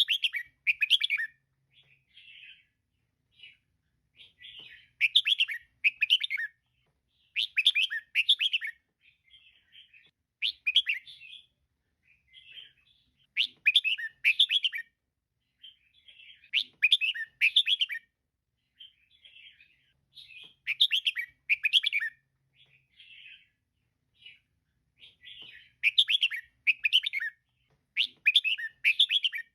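Female red-whiskered bulbul calling: short runs of quick chirps repeated every two to three seconds, with softer chirps between them.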